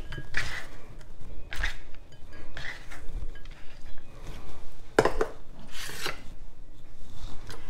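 Light knocks and clinks of kitchen handling: sliced onion going into a white ceramic bowl, a knife laid down on a plastic cutting board, and the bowl set down on the counter. There is one louder knock about five seconds in.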